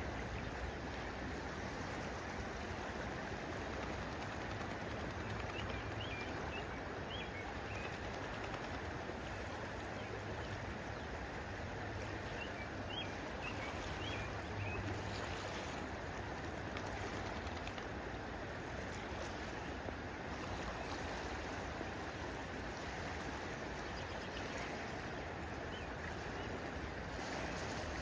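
Steady rushing of flowing water, with faint short bird chirps a few times in small clusters.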